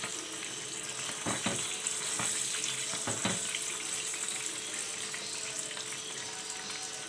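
Dried belanak (mullet) frying in hot oil, with a steady sizzle and crackle. There are a few brief knocks or scrapes about a second and a half in and again about three seconds in.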